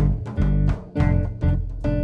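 Jazz band playing: archtop electric guitar picking short chords, about two a second, over bass guitar and drums.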